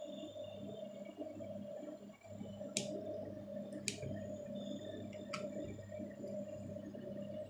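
A steady low hum with three sharp clicks over it: two about a second apart, a third a second and a half later.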